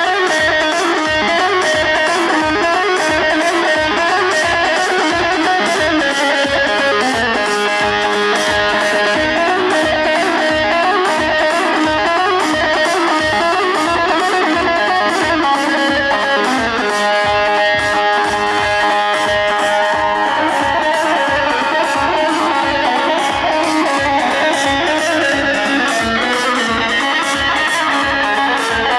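Instrumental dance music with a plucked, electric-guitar-like string lead playing the melody over a steady drum beat.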